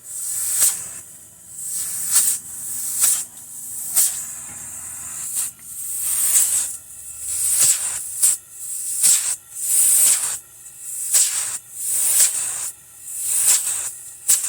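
Embraco refrigerator compressor running with its lines open, air hissing out of the high-pressure discharge tube in bursts about once a second over a faint motor hum.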